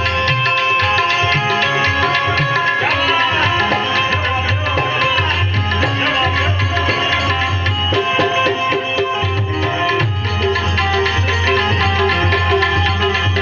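Instrumental passage of Gujarati folk music: tabla and drums keep a steady beat under a melody of held notes.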